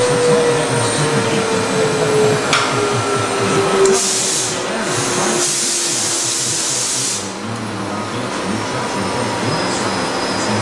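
Steady machine-shop noise with a mechanical whine that slides slowly down in pitch, and a loud hiss from about four to seven seconds in that cuts off suddenly.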